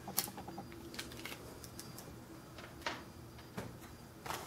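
A few faint, sharp clicks and taps, scattered about a second apart, from a scale model and its packaging being handled.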